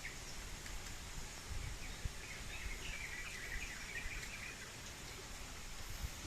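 Steady outdoor hiss with a low rumble, and a bird twittering for about two seconds in the middle.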